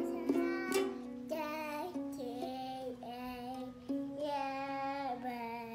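A toddler strums a toy ukulele twice, then sings a string of long held notes in a young child's voice.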